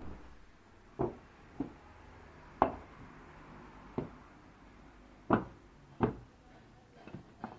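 A series of sharp, irregular wooden knocks, about seven or eight spread over several seconds, with two close together near the end.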